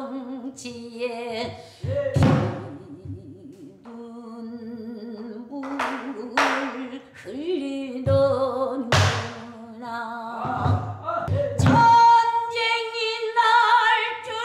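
A woman singing in traditional Korean style, holding long wavering notes, accompanied by a buk barrel drum struck with a stick at irregular intervals, about six strokes.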